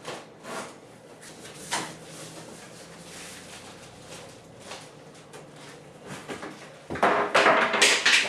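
A cardboard box being opened and its packed contents handled: scattered scrapes and knocks, then loud rustling of the packaging beginning about seven seconds in.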